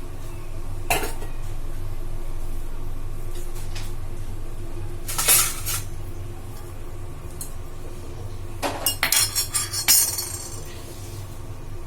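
Metal kitchen utensils clinking and clattering against cookware. There is a single knock about a second in, a louder clink near the middle, and a quick run of clatters near the end, all over a steady low hum.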